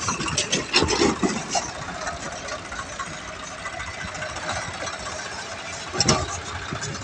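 Swaraj 744 FE tractor's three-cylinder diesel engine running under load as it pulls a loaded trolley over rough ground, with sharp knocks and clanks in the first second and a half and again about six seconds in.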